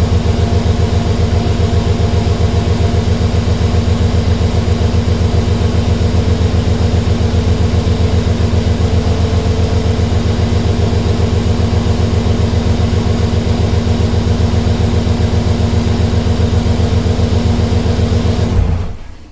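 Car engine idling steadily, loud and close, with an even, rapid pulse; it stops abruptly near the end.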